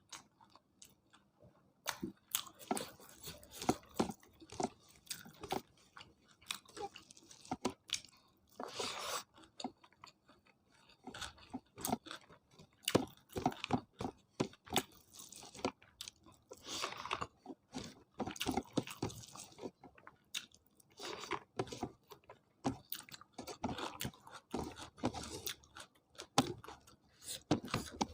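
Close-miked eating sounds: a person chewing and biting food with wet clicks and repeated crunches, starting about two seconds in after a near-silent moment.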